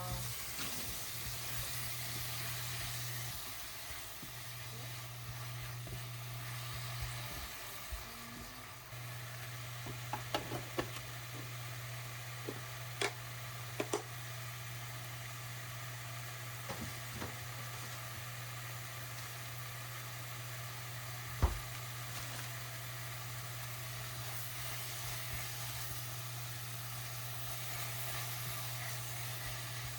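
Food sizzling in a frying pan, a steady hiss over a low hum, with scattered light clicks of a utensil against the pan and one sharp knock about two-thirds of the way through.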